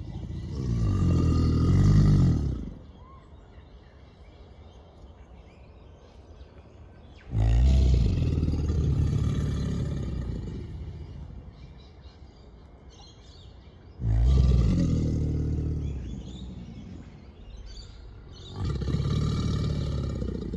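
Male American alligators bellowing their mating call: deep, rumbling bellows in four bouts a few seconds apart, each starting abruptly and fading out.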